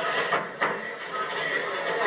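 Crowd noise at a live fight: overlapping voices and shouting, with music in the background. Two short sharp sounds come about half a second in.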